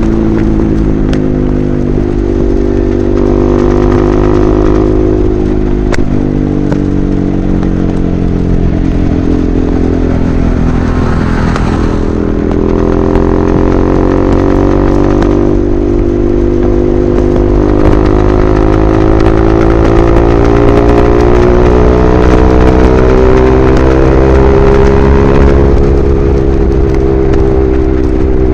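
KTM RC 390's single-cylinder engine running at cruising speed through an aftermarket SC Project-style slip-on exhaust, its pitch rising and falling gently with the throttle, over wind rumble.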